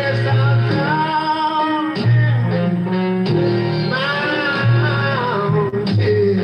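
An old-school R&B record playing: a wavering melody line over steady bass notes.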